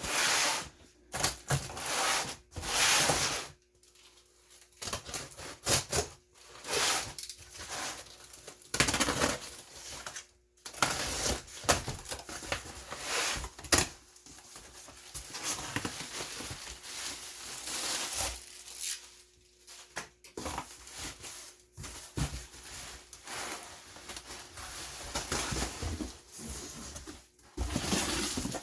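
A package being opened by hand: packaging tearing and rustling in irregular bursts, with short pauses in between.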